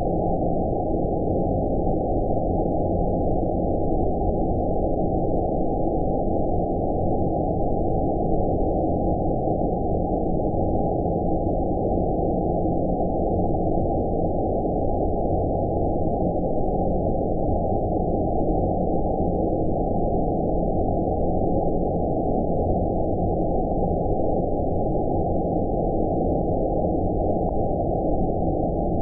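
Steady 'outer space' sleep noise: a deep, muffled rush of even noise with nothing high in it, unchanging in level.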